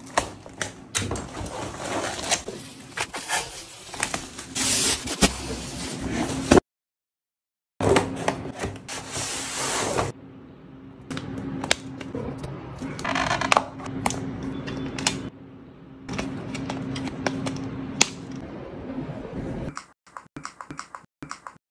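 A cardboard box and its packaging being opened and handled: scraping, rustling and sharp clicks in short stretches, with a steady low hum under much of the middle.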